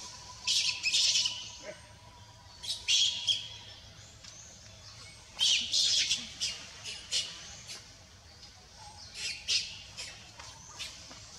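Wild birds calling: short clusters of sharp, high chirps and squawks every two or three seconds.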